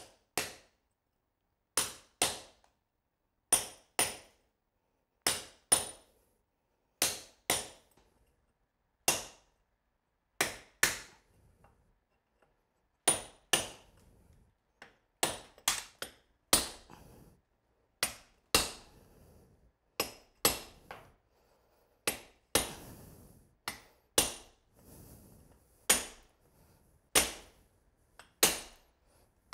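Hammer striking a steel hand chisel, cutting out the mortar of a brick's head joint. Sharp blows, mostly in pairs with pauses between, coming faster near the end.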